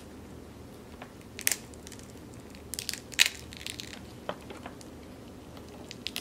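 Cooked crab legs being bent and snapped apart by hand: a few sharp, separate cracks of shell, the loudest about three seconds in.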